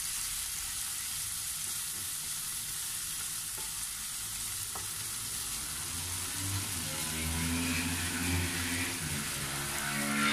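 Pork belly frying in soy and oyster sauce in a nonstick pan, sizzling steadily as a wooden spatula stirs it around. A low steady hum joins in about six seconds in.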